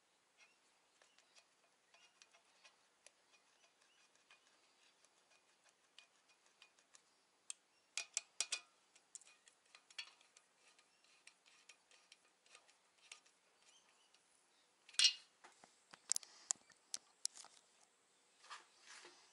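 Faint light metallic clicks and ticks from a socket and extension turning the oil squirter bolts into an RB25DET engine block. A few sharper metal clinks come about 8 s in, and again around 15 to 18 s.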